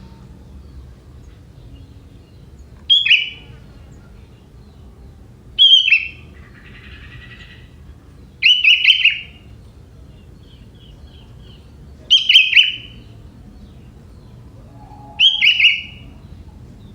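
Young wild sooty-headed bulbul calling: five short, loud phrases of quick notes, each under a second, spaced about three seconds apart.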